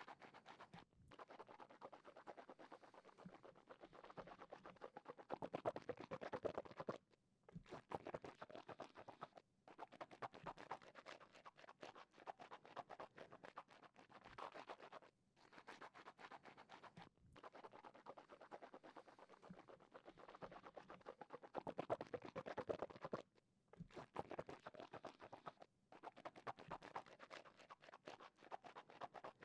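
Wet mouth sounds made with water held in the mouth: dense crackling clicks and squelches in stretches of a few seconds, broken by short pauses, with louder spells about a fifth and three quarters of the way through.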